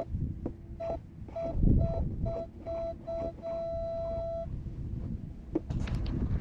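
Metal detector sounding a target signal as its coil sweeps over the ground: short beeps that come quicker and quicker, then one steady tone held for about a second. Rustling and a few knocks follow near the end.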